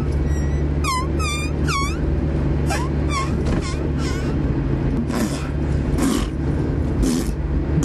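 A man making silly mouth noises: three quick, shrill squeaks that swoop steeply downward, then softer gliding squeaks, then several breathy hissing bursts. A steady low car engine and road hum runs underneath.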